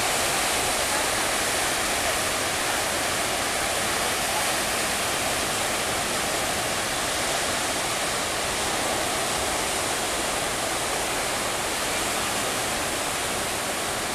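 Rough-sea surf breaking and washing over shoreline rocks: a steady, unbroken rush of churning water.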